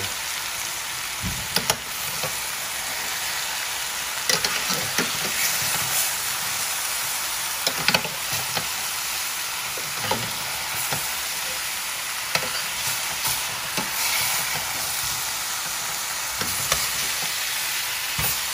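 Seasoned chicken pieces sizzling as they brown in hot oil in a stainless steel sauté pan, with scattered clinks and scrapes of a utensil turning them against the pan.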